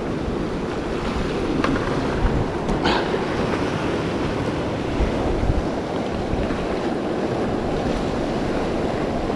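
Sea waves washing against shoreline rocks, with wind buffeting the microphone as a steady rushing noise. A couple of faint clicks come through about one and a half and three seconds in.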